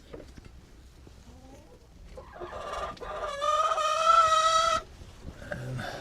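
A rooster crowing once: the call swells up about two seconds in, then holds one loud, steady note for about a second and a half before cutting off.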